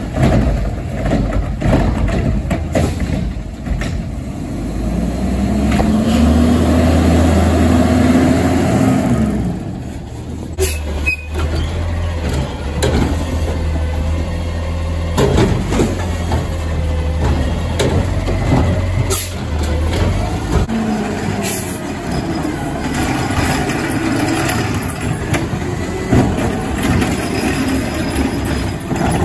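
Automated side-loader garbage trucks running, with the engine revving and rising in pitch as a hydraulic arm lifts and dumps a cart. This is followed by scattered clanks and knocks as carts are shaken out and set back down. The sound changes abruptly about ten seconds in.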